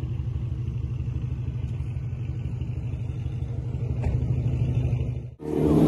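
Tuned BMW 340i's turbocharged 3.0-litre inline-six idling with a steady low exhaust rumble, a little louder about four seconds in, then cut off abruptly near the end.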